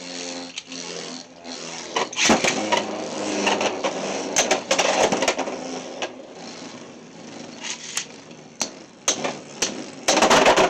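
Beyblade X spinning tops battling in a plastic stadium. A steady spinning hum comes first, then rapid rattling and repeated sharp plastic clacks as the tops collide, with the loudest hits near the end.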